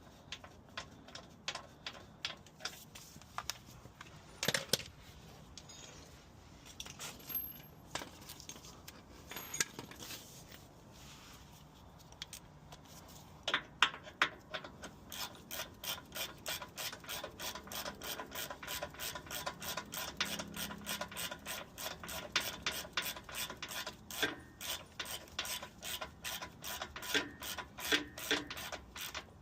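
Hand ratchet wrench clicking as a bolt is run in. There are scattered tool clicks and knocks at first, then steady ratcheting at about three to four clicks a second from about halfway through.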